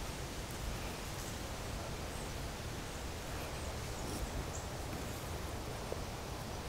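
Steady outdoor background noise: a low rumble under an even hiss, with a few faint high chirps about four seconds in.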